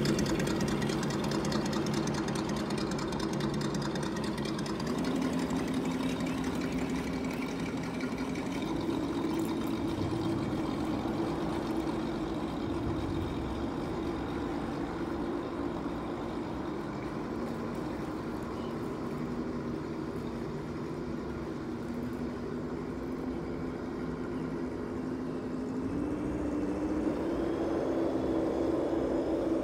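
A steady motor drone with several held tones, its pitch stepping down about five seconds in and up again near the end.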